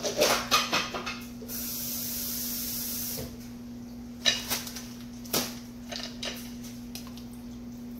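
Off-camera kitchen handling sounds: a quick run of knocks and clinks, then a steady hiss for about a second and a half, then two sharper single knocks, over a low steady hum.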